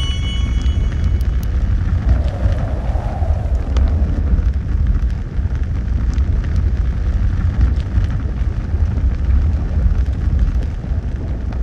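Loud, steady low rumbling noise with no clear beat or melody, held throughout.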